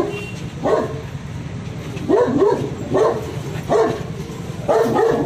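A dog barking repeatedly in about five short bouts, some of them double barks, over a steady background murmur.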